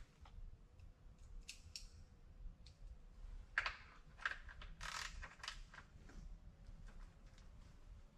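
Faint scattered clicks and light taps, a few louder ones clustered near the middle, as hand tools and fasteners are worked at the underside of a car raised on a lift.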